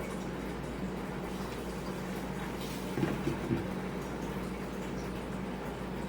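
Quiet room tone with a steady low hum, and a brief faint sound about three seconds in.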